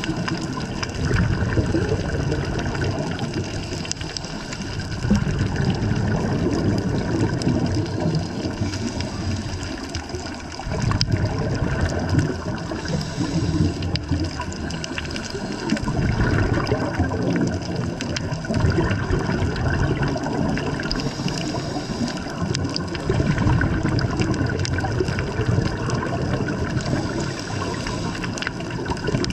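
Underwater noise on a diving camera's microphone: a rushing, bubbling wash of water that swells and eases every few seconds, with faint clicks throughout.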